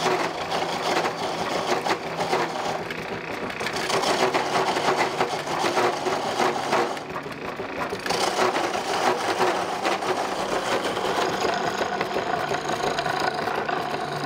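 Home-built wooden foot-powered treadle lathe running as it is pumped, its frame and flywheel clattering in a busy rhythm, while a hand-held turning tool cuts a spinning honey dipper.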